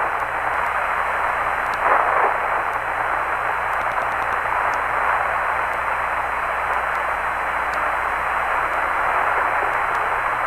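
Steady hiss over the Apollo 16 air-to-ground radio link, picked up through an astronaut's open microphone in the lunar module ascent stage as it lifts off; the narrator takes it, at 99% certainty, for the noise of the ascent engine. A brief louder surge comes about two seconds in.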